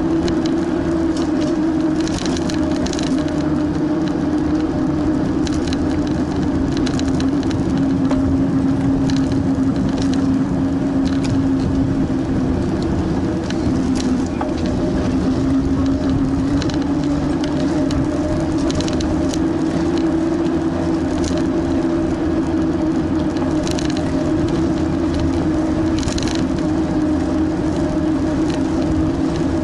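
Bicycle rolling along a paved path, heard from a camera mounted near the front wheel: a steady tyre and road rumble with a hum that drifts slightly in pitch, and frequent light rattles and clicks.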